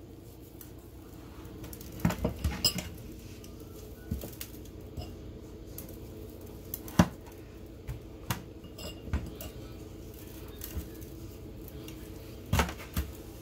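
Scattered clinks and knocks of kitchen utensils and dishes while fish is being seasoned, a handful of separate taps with the sharpest about halfway through, over a faint steady hum.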